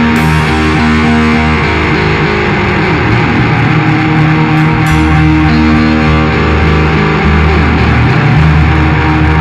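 Band playing an instrumental passage: guitars and bass over drums, with a cymbal crash near the start and another about halfway through.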